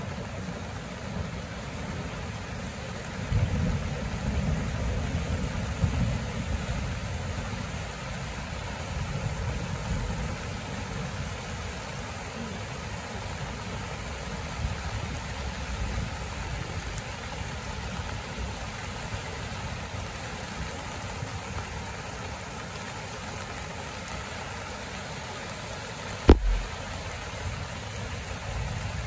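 A muddy river in flood after heavy rain, rushing over and around rocks with a steady low rumble. A single sharp knock comes near the end.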